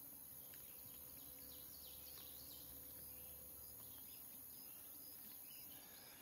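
Near silence: faint woodland ambience with quiet bird chirps scattered throughout.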